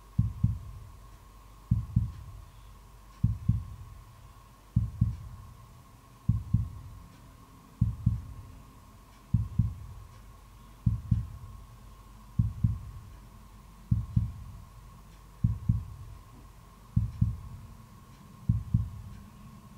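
Heartbeat sound effect: a low double thump repeating steadily about every one and a half seconds, over a faint steady high tone.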